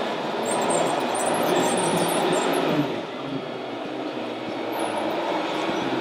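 Radio-controlled scale tipper truck driving on a sand track, a steady mechanical running rumble that drops a little about halfway through.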